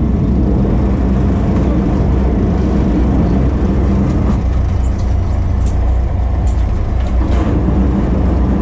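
Fishing boat's engine running steadily with a loud, even low rumble, with a few faint clicks over it about halfway through and again later.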